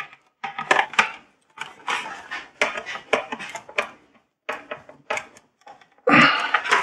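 Small screws being driven into a license plate bracket cover with a hand screwdriver: irregular clicks, ticks and scrapes of the metal tip in the screw heads and of the bracket being handled. A louder rustling, handling noise comes in near the end.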